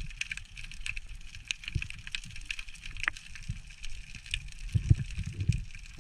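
Underwater ambience heard through a camera housing: a steady crackle of faint, sharp clicks, with a few dull low thumps of water moving around the camera, a cluster of them near the end.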